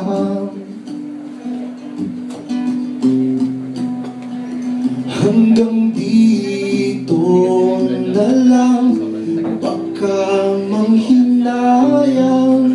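Acoustic guitar strummed live, with a man singing over it in several phrases.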